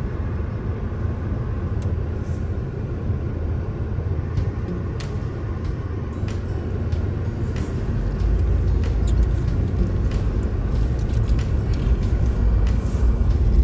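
Road noise inside a moving car: the engine and tyres running on a wet, slushy road, a steady low rumble that grows louder about eight seconds in.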